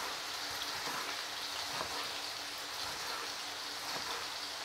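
Slices of Kasseler (smoked cured pork) frying in oil in a pan, a steady sizzle, with a few faint knife taps on a wooden chopping board as an onion is diced.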